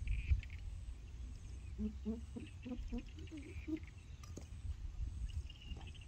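Hands setting a bird trap on dry ground, with low handling rumble and one sharp tap a little past four seconds in. Small birds or insects chirp in the background, and a run of short low calls comes in the middle.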